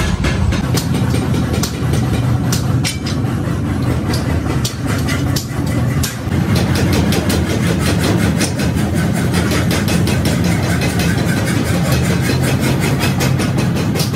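A steady low machine drone runs under frequent sharp metallic clanks and knocks as steel leaf-spring leaves and scrap are handled and set down.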